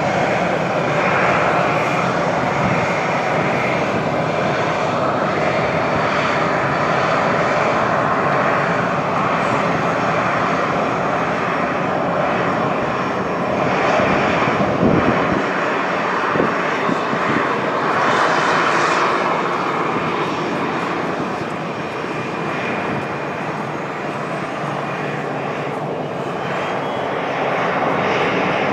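Turbofan engines of a China Eastern Airbus A321 airliner running as it rolls along the runway: a steady, loud jet roar that eases slightly about two-thirds of the way through.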